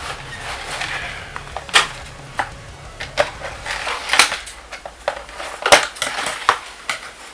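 Packaging and a small RC buggy being handled: irregular clicks, taps and rustling, with a few sharper knocks.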